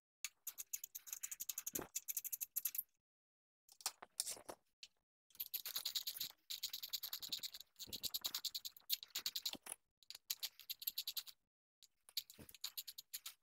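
Faint runs of quick, light clicking as the small bolts holding a motorcycle handlebar switch housing are loosened with a hand tool, in several runs with short pauses between them.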